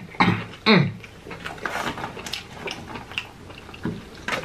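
Mouth sounds of a man eating fried chicken: two short falling "mmm" hums of pleasure in the first second, then soft chewing and lip smacks.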